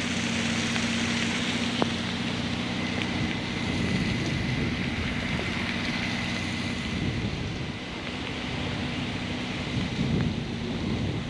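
Car engine running steadily with a low hum, under a constant rushing noise.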